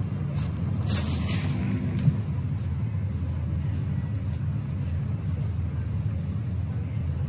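Steady low rumble of city traffic, with faint footsteps on pavement ticking at roughly half-second intervals.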